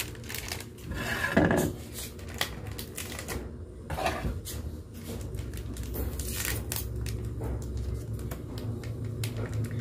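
Chicken necks cooking in oil and a little water in a wok, crackling and popping irregularly over a steady low hum.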